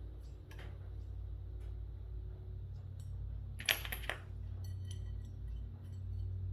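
Metal pieces clinking and knocking against each other, with a quick run of sharp clinks a little past halfway followed by a brief metallic ring, over a steady low hum.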